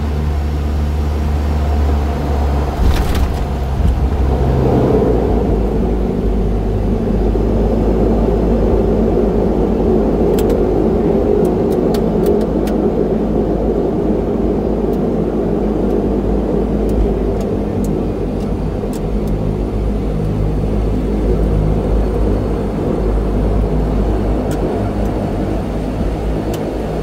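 Dash 8-100 turboprop engines and propellers heard from the cockpit during the landing roll. A thump comes about three seconds in, then the propeller noise grows into a fuller, steady roar. Faint clicks come now and then later on.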